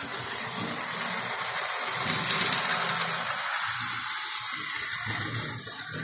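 Lionel O-27 model diesel locomotive running on three-rail tubular track: its electric motor whirring and wheels rumbling on the rails, a little louder in the middle as it passes across a truss bridge.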